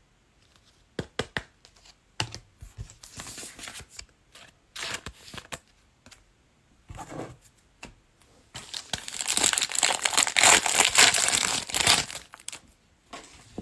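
Wrapper of a 2021 Playoff Football card pack crinkling and tearing open as the pack is opened. Scattered light rustles and clicks come first, then a loud, continuous stretch of crinkling begins past the middle and lasts about four seconds.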